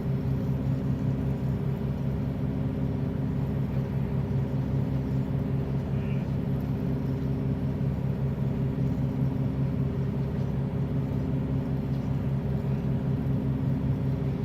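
Steady low drone of a running vehicle engine, an even hum that holds without change.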